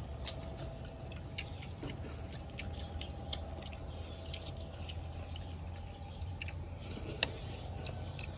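People eating a meal: scattered light clicks of chopsticks and spoons against bowls, with some chewing, over a steady low background.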